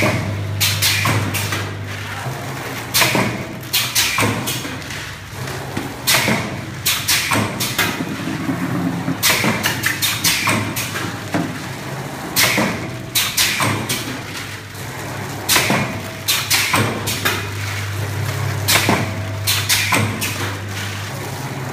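Vertical form-fill-seal pouch packing machine running: its pneumatic cylinders and sealing jaws clack and thud in a repeating cycle of about one burst every three seconds over steady machine noise. A low hum is there at the start and again in the last few seconds.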